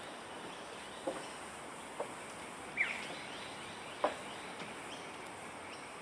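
Steady outdoor background hiss with a faint high steady hum, a few short sharp clicks, and one brief falling bird chirp about three seconds in.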